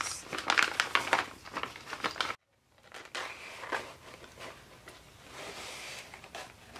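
Sheet of paper rustling and crinkling as it is handled and curled. The sound cuts out suddenly about two and a half seconds in, then softer rustling goes on.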